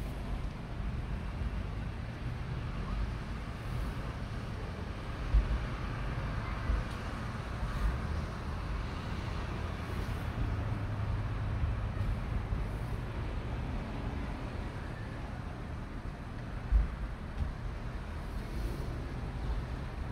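Low steady rumble of a car heard from inside its cabin, the engine running while the car waits or creeps forward, with two short thumps about five and seventeen seconds in.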